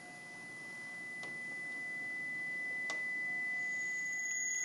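A steady, high pure electronic tone that slowly swells in loudness, with a second, higher tone joining about three and a half seconds in: a suspense sound effect building before the barrel wheel starts turning.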